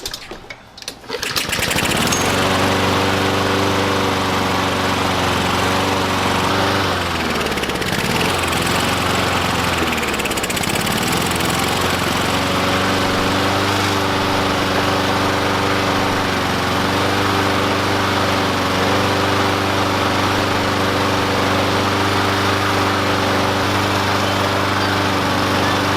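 Honda engine on an MTD Pro walk-behind lawn mower catching within the first couple of seconds and settling into a steady run. Its speed sags twice and recovers about a third of the way in, then holds steady. It now runs once the overfilled crankcase oil has been drained to the proper level.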